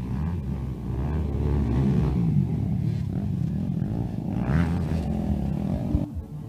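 Enduro dirt bike engines revving, their pitch rising and falling repeatedly as the bikes accelerate and ease off. The sound drops off suddenly about six seconds in.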